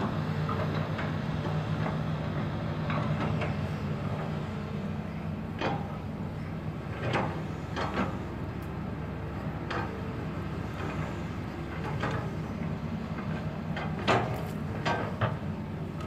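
Diesel engine of an amphibious pontoon excavator running steadily as the machine tracks through mud, with sharp knocks from the machinery now and then, most of them in the second half.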